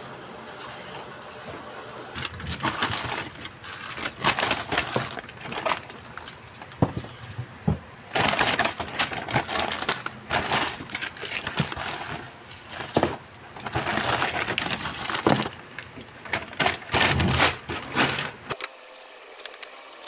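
Paper shopping bag and plastic snack packets rustling and crinkling in repeated bursts as they are handled and unpacked; the rustling cuts off suddenly near the end.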